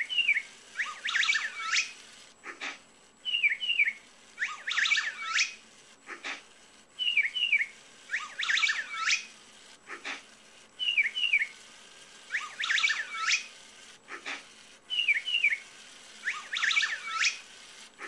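Bird-chirp sound effect from the LEGO WeDo program, played through laptop speakers: two short falling chirps, then a quick flurry of twittering, repeating about every four seconds, five times over.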